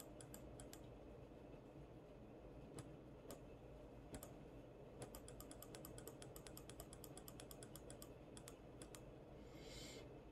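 Faint clicking at a computer: scattered single clicks, with a quick run of about ten clicks a second about halfway through.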